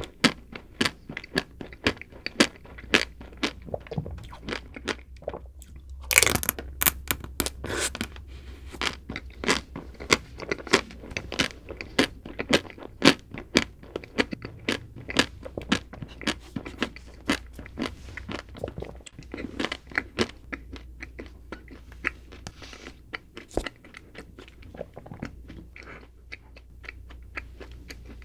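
Close-miked chewing of a chocolate-coated ice cream bar: many rapid, crisp crackles of the chocolate shell breaking between the teeth, with a louder, longer crunch about six seconds in.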